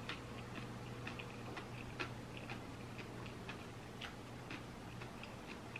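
Quiet chewing of a big mouthful of black bean noodles: soft, wet mouth clicks at an uneven pace, a few each second, over a faint low hum.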